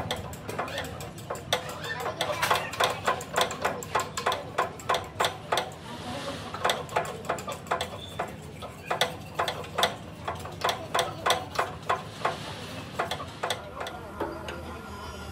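Metal-on-metal tapping or clicking from hand tools working on truck gearbox parts, a quick even run of about three to four sharp clicks a second that stops about 13 seconds in.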